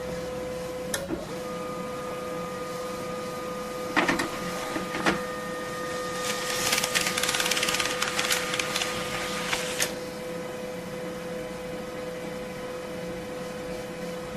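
A printer running: a steady motor hum with a held tone, broken by a few sharp clicks and knocks. A burst of fast, dense rattling as it prints runs for about four seconds in the middle, then it settles back to the hum.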